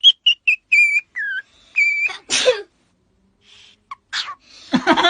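A run of short, high whistle-like chirps, some dipping in pitch, followed by two short sneezes from a pet, about two and a half and four seconds in.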